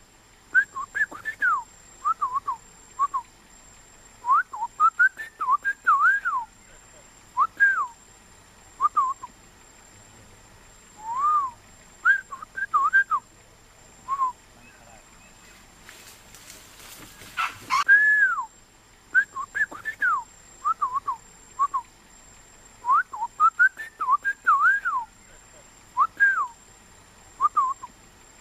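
Clear whistled notes, each rising and falling in pitch, given in short phrases of two to five notes with pauses between. A brief hiss of noise comes about two-thirds of the way through.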